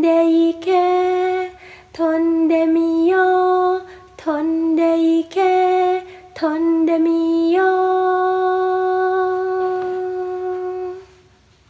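A woman singing unaccompanied and without words: four short phrases, then a long held final note that fades out near the end.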